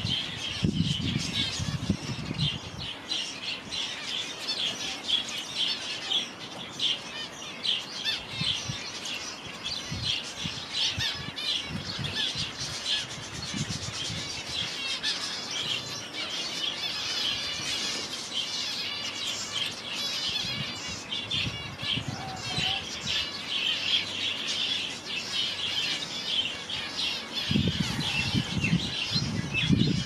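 Many small aviary parrots chirping and chattering continuously, a busy stream of short high calls. A low rumble comes in the first couple of seconds and again near the end.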